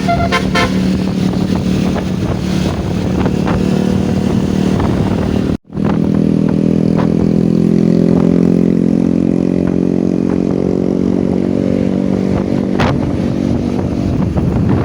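Road vehicle engine running steadily in traffic, with the last notes of a melodic musical bus horn ending about half a second in. The sound drops out abruptly for a moment about five and a half seconds in, then the engine returns.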